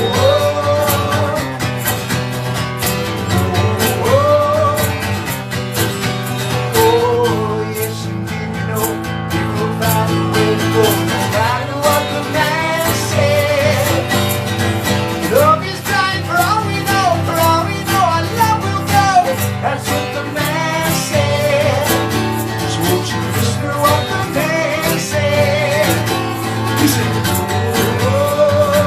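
Live music: guitar playing with a melody line carried over steady strummed accompaniment.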